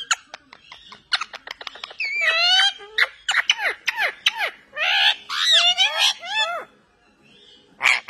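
Indian ringneck parakeets calling at close range: a run of quick clicks, then about two seconds in a string of loud, short squawking calls that bend up and down in pitch, dying away near the end.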